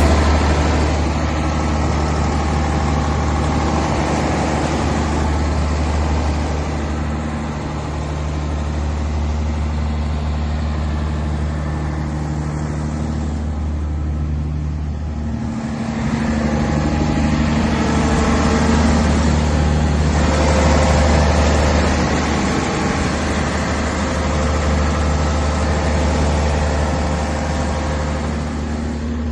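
Large Caterpillar diesel generator engine running steadily at constant speed, a deep, even hum: it has started and is running after its rodent-damaged wiring was repaired.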